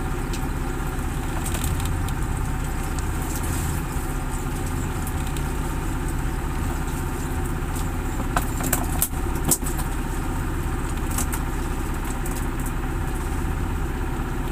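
A motor boat's engine running steadily at idle, a continuous low drone. A few sharp clicks or knocks come briefly about eight to ten seconds in.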